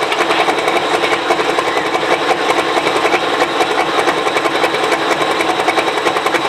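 Super stock pulling tractor's turbocharged diesel engine running at idle after its pull, a loud steady rapid clatter.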